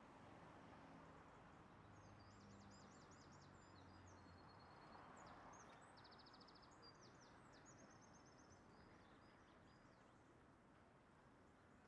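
Near silence: faint outdoor ambience, with small birds giving quick high chirps and short trills from about two to nine seconds in.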